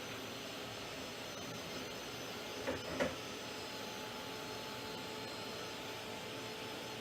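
Handheld craft heat tool blowing hot air steadily to partly dry the paint, with a faint hum in its rush of air. Two light knocks come close together about three seconds in.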